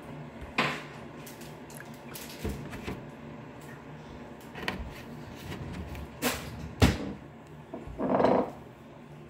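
A plastic milk jug and a ceramic coffee mug being handled on a wooden table: scattered knocks and clicks, the sharpest about seven seconds in, then a short scraping rustle about eight seconds in as the mug is taken up.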